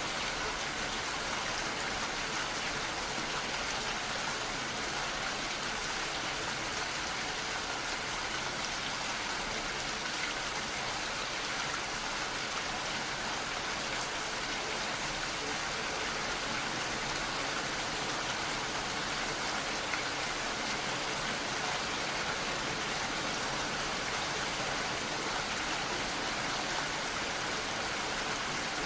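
Steady rain, an even hiss of many drops that neither builds nor eases.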